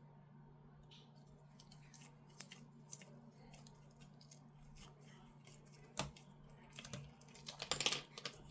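Scattered small clicks and snips of hand tools working on a small FPV quadcopter, with a louder click about six seconds in and a quick run of snipping and clicking near the end, over a steady low hum.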